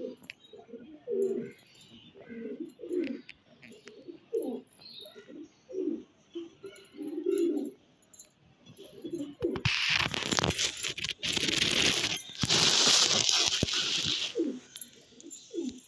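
Domestic pigeons cooing over and over in short, low calls. About ten seconds in, a loud rustling noise covers them for about five seconds, and then two more coos follow.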